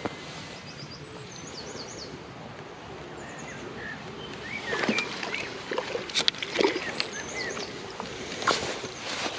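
Water splashing and sloshing at the bank as a hooked carp is played close in and drawn toward a landing net, with a few sharp knocks and splashes around the middle. Small birds chirp in short high phrases.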